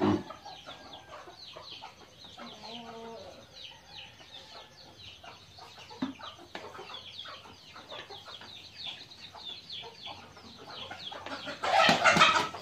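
A flock of chickens clucking and chirping, with many short high chirps throughout and a louder burst of sound near the end.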